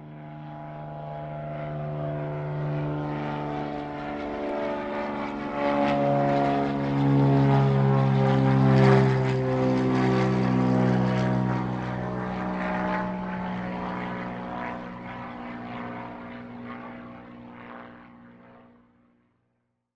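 A propeller airplane flying past: a droning engine with a stack of steady tones that swells to its loudest about halfway through, drops slightly in pitch as it passes, then fades away to silence near the end.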